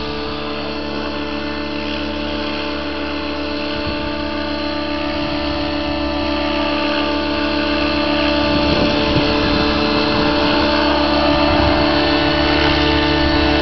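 Align T-Rex 700 radio-controlled helicopter in flight: a steady whine from its rotor head and drive, the pitch easing slightly lower at the start and then holding. It grows gradually louder toward the end.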